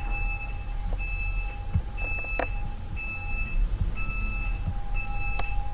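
A short, high electronic beep repeating about once a second over a steady lower hum, with two sharp clicks.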